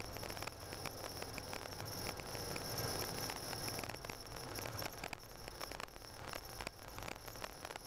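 Car driving on a snow-covered road, heard from inside the cabin: a steady low rumble with dense crackling of the tyres on snow.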